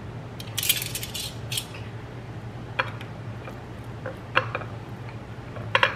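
Metal kitchen tongs and a spoon clicking and tapping against a plate and bowl while serving shredded chicken and Greek yogurt onto tortillas, with a short scraping, rustling stretch about a second in and a few sharp clicks later on. A steady low hum runs underneath.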